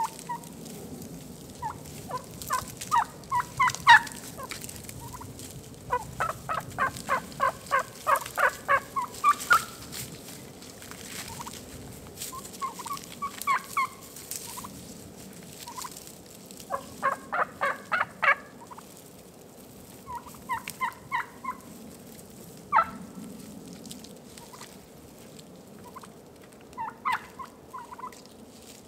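Wild turkeys calling: about seven runs of evenly spaced notes at about four a second, with scattered single notes between them.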